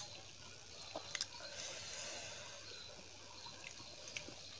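Faint, wet mouth clicks and lip smacks picked up close to a clip-on microphone: a few sharp, sparse clicks over a soft hiss.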